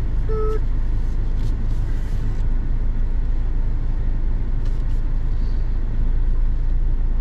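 Steady road and engine rumble of a Mahindra Scorpio driving along the highway, with two short beeps right at the start.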